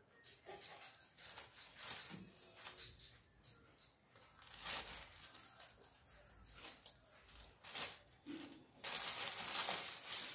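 Clear plastic wrapper crinkling as a toddler scrunches it in her hands, in quick irregular crackles, with a louder spell of steady crinkling near the end.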